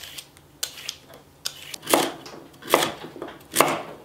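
Daikon radish being peeled, with faint scrapes, then chopped with a chef's knife on a wooden cutting board: three firm knife strokes a little under a second apart in the second half.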